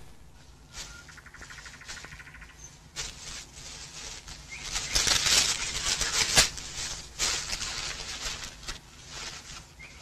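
Rustling and crackling of leaves and brush in forest undergrowth, louder around the middle. A brief rapid trill sounds about a second in.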